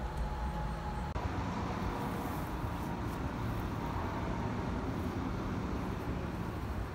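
Steady low outdoor background rumble with a faint steady hum above it; no distinct event stands out.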